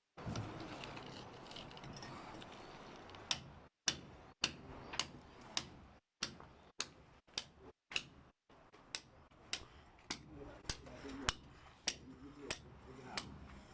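A run of sharp taps, about two a second, beginning a few seconds in, over a low background noise.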